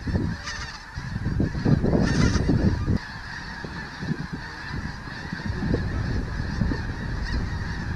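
A huge flock of snow geese calling overhead: a dense, unbroken chorus of overlapping honks. It comes with stretches of low rumble, one from about a second in to three seconds, another building again in the last couple of seconds.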